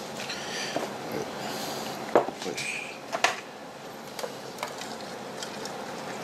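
Handling sounds on a table: light rustling, then a few sharp knocks and clicks, the clearest about two and three seconds in, as plastic breeding containers are moved and set down.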